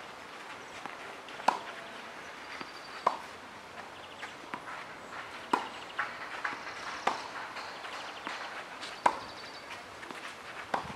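Tennis balls struck by rackets in a rally on a clay court: a sharp pop about every one and a half to two and a half seconds, with fainter ball bounces and footsteps between.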